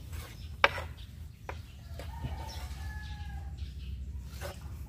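A rooster crowing once, a faint drawn-out call starting about two seconds in, after two sharp knocks, the first of them the loudest sound here.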